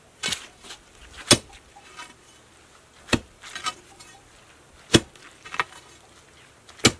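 Steel digging bar driven down into frozen ground: four sharp strikes about two seconds apart, with softer scrapes of the bar in the dirt between. The ground is still frozen, so the bar chips at it rather than sinking in.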